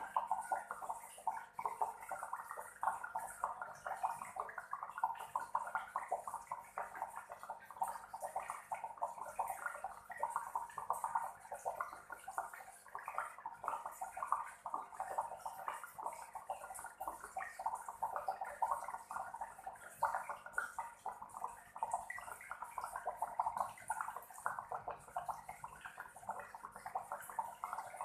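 Aquarium waterfall driven by an air aerator: water bubbling and gurgling steadily, a dense run of small irregular bubbling pops.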